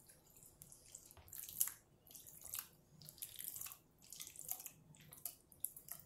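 Pieces of set jelly being scraped off a plate with a silicone spatula and dropped into thick custard: an irregular string of soft, wet scrapes and squelches.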